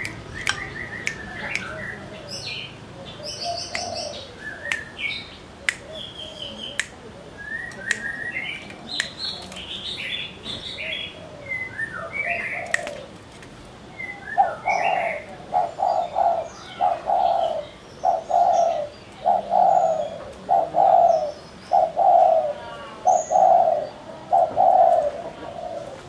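Spotted dove (tekukur) cooing: from about halfway in, a loud run of repeated low coo phrases, about one a second. Before that, scattered high chirps and clicks.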